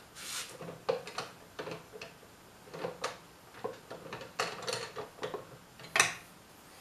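Irregular light clicks and knocks as a wooden bowl is handled and seated against the jaws and rubber stops of a homemade MDF Cole-jaw plate on a stopped lathe. The loudest knock comes about six seconds in.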